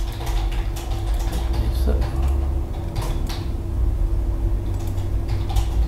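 Computer mouse clicks, a few sharp ones about three seconds in and again near the end, over a steady low hum of microphone and room background noise.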